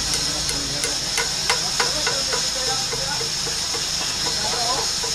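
A run of light, sharp taps, about three a second, from hand-tool work on a bolo's handle clamped in a vise, over a steady high hiss.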